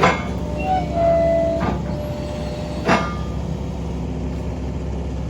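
Link-Belt LBX 160X2 excavator's diesel engine running steadily. Two sharp metallic clanks come about three seconds apart, with a brief high-pitched whine between them.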